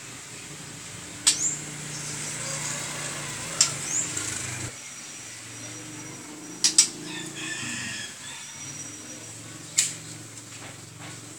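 White-rumped shamas calling in their cages: sharp clicking calls every two to three seconds, two of them followed by a quick rising chirp, and a short high warbled phrase about seven seconds in.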